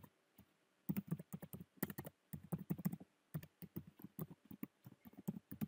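Typing on a computer keyboard: quick irregular runs of key clicks, starting about a second in.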